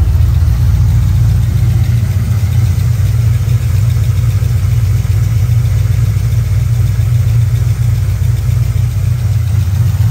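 Turbocharged SN95 Mustang engine idling steadily, heard up close in the open engine bay: a loud, even low rumble.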